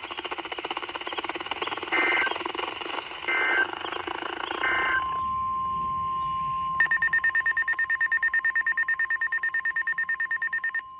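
NOAA Weather Radio alert signalling: three short warbling SAME data bursts over a harsh buzz, then the steady 1050 Hz warning alarm tone. About two seconds into the tone, a weather radio's alarm joins with rapid beeping, about ten beeps a second, and stops shortly before the tone does.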